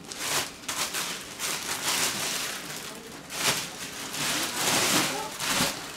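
Bubble wrap and a plastic sleeve crinkling and rustling as they are pulled off a tennis racket, in uneven surges of handling.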